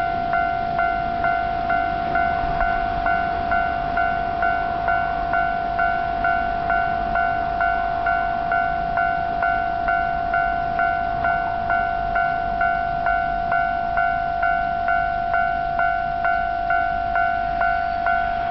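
Railway level crossing warning bell ringing steadily, a clanging tone repeating about twice a second, which signals that a train is approaching or passing.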